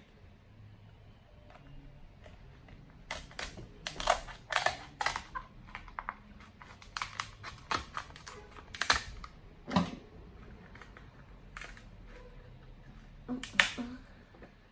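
Kitchen scissors snipping through a cooked king crab leg's shell: irregular clusters of sharp crunches and clicks, the loudest near the end.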